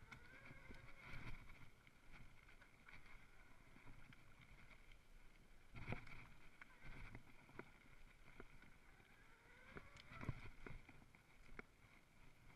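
Mountain bike rolling fast over a dirt trail: faint tyre and trail noise with scattered knocks and rattles over bumps, the sharpest about six and ten seconds in. A faint whine runs underneath and rises in pitch twice.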